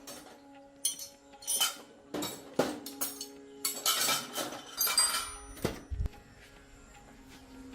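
Metal parts knocking and clinking against one another, each strike ringing briefly, several in quick succession, then quieter from about six seconds in.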